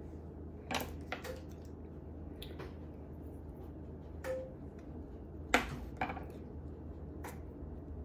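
A spoon clinking and tapping against the cookie dough tub and baking pan as dough is scooped: a scattering of sharp clicks, a couple with a brief ring, the loudest about five and a half seconds in, over a low steady hum.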